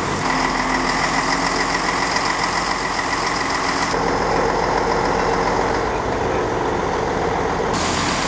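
Vehicle engines idling steadily, a heavy truck engine among them. The sound shifts abruptly about four seconds in and again near the end.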